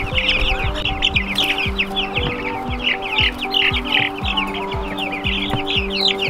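A flock of young meat chicks peeping constantly, many high chirps overlapping, over background music with held notes and a steady low beat.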